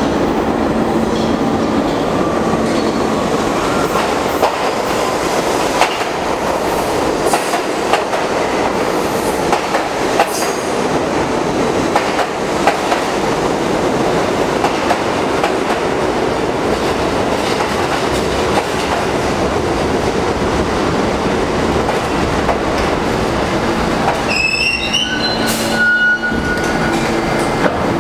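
New York City subway train running, a steady noise of wheels on rail with occasional sharp clicks. Near the end comes a brief high-pitched wheel squeal.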